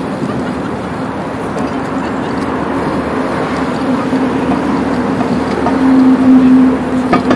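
Wind and riding noise buffeting an action camera's microphone on a slowly moving bicycle, with a steady hum underneath that grows louder about six seconds in.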